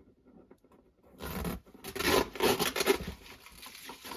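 Cardboard box being handled and opened: after a quiet second, a run of loud rasping, tearing and rubbing noise for about two seconds, then softer rustling.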